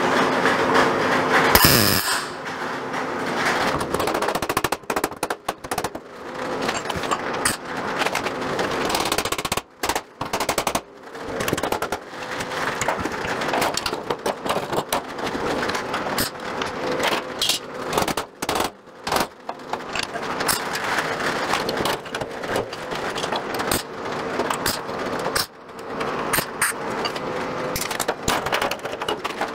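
MIG welder tack- and stitch-welding a steel patch strip onto an old sheet-steel truck fender: the arc crackles and sputters in runs of several seconds, broken by short pauses between tacks, over a faint steady hum.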